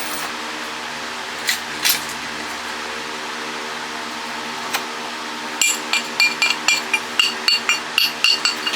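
A hammer tapping on metal parts of an electric water pump motor being taken apart: a few separate knocks, then from about halfway a quick run of ringing metallic taps, roughly three a second. A steady hum runs underneath.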